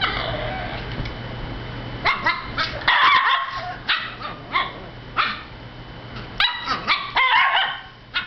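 Alaskan Klee Kai puppy barking and yipping during rough play with another dog. The calls are a run of short, high yaps in clusters, starting about two seconds in.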